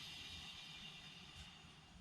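Faint, steady whir of a 2018 VW GTI rear wheel spinning freely off the ground, slowly fading as it coasts down. It runs smooth, with no rubbing or whooshing from the bearing or brake: this is the good side.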